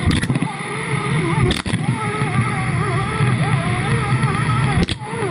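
Muffled underwater rumble with a wavering whine, picked up by a GoPro in its waterproof housing. A few short clicks break in, the clearest about a second and a half in and near the end.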